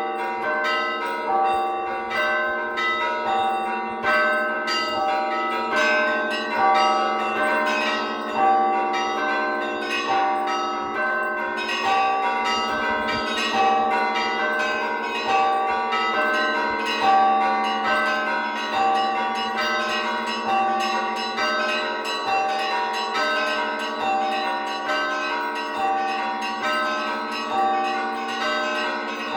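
Orthodox church bells rung together in a festal peal. Small bells strike in a fast, repeating pattern over medium bells, with a deep bell tone sounding steadily underneath.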